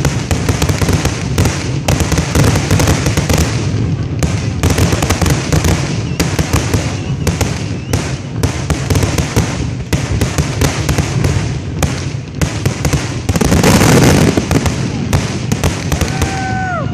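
Aerial fireworks bursting in rapid succession: a dense, continuous run of sharp bangs and crackles from white crackling stars, with a louder, longer burst about 14 seconds in.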